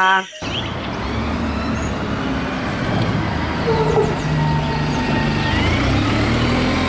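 City bus driving past on a street, its engine running steadily amid road and traffic noise, starting about half a second in.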